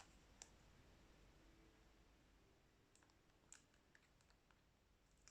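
Near silence, with a few faint scattered clicks from a smartphone being handled.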